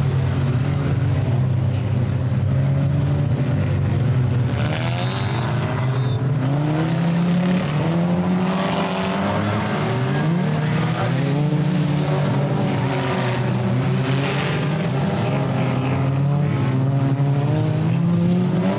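Several stock car engines racing on a dirt track, their pitch rising and falling as the cars rev through the bends and pass by, with many engines overlapping.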